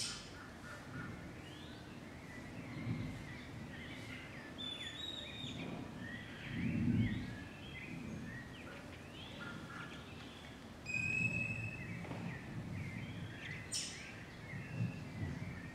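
Birds chirping and whistling throughout, with short sliding calls and one long steady whistle about eleven seconds in. A few low rumbles come and go, the loudest about seven seconds in.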